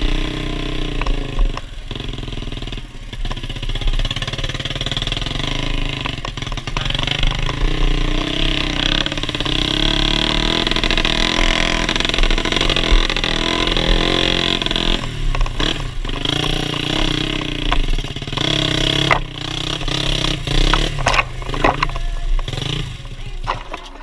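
Dirt bike built on a Yamaha Jupiter four-stroke single-cylinder engine, ridden on a trail through its open exhaust, the engine note rising and falling as the throttle opens and closes. Sharp knocks and rattles come in over the last few seconds as the bike pushes into brush.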